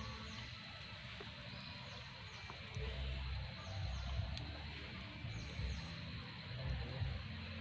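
Outdoor ambience by a tropical river: a steady hiss with a high, falling chirp repeated in groups of two or three every second or so, likely from a bird. Low rumbles come and go through it.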